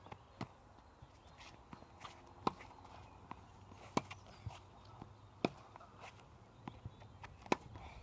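Tennis ball being hit and bouncing on a hard court: sharp pops every second or two, with lighter footsteps and scuffs in between.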